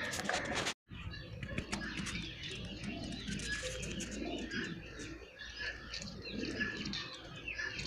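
Pigeons cooing with wings flapping, mixed with the chirping of other birds; the sound drops out for a moment about a second in.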